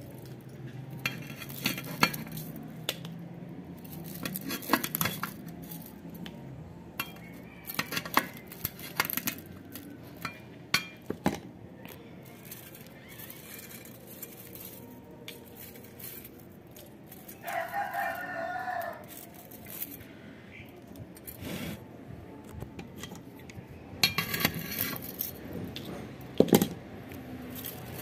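Light clicks and clinks of the motor's old factory aluminium winding wire being pulled out of the stator slots by hand. A rooster crows once, for about a second and a half, a little after the middle.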